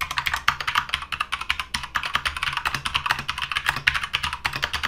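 Keychron K2 mechanical keyboard with an aluminum frame and brown switches being typed on quickly, a rapid, continuous stream of keystrokes.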